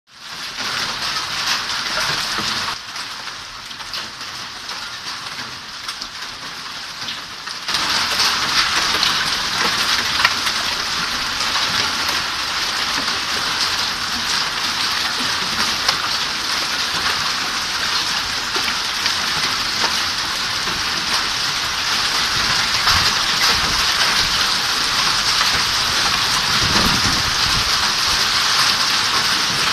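Steady rain falling on a surface, a dense even hiss that eases off for a few seconds and comes back heavier about eight seconds in. A low rumble rises briefly near the end.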